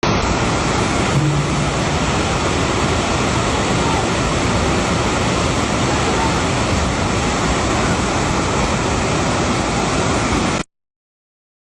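Floodwater rushing in a loud, steady roar that cuts off suddenly about ten and a half seconds in.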